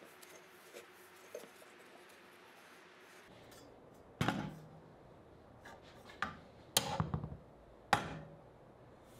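Steel bar clamps knocking and clinking on wood as they are set across clamping cauls and tightened down on a glued-up panel: quiet handling at first, then a handful of sharp knocks with a short metallic ring in the second half.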